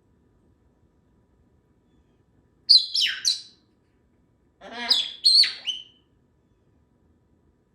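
Congo African grey parrot giving two quick bursts of high whistles and chirps, several sweeping down in pitch, about three and five seconds in.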